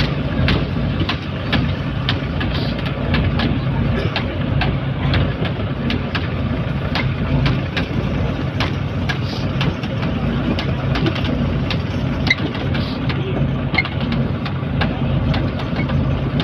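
Fishing boat's engine running steadily with a low hum and a sharp clicking about twice a second.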